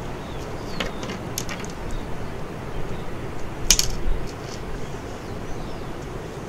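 A few small clicks and light taps as hands handle a finished fishing rig's brass swivel and lead sinker on a table. The sharpest click comes nearly four seconds in, over a steady background noise.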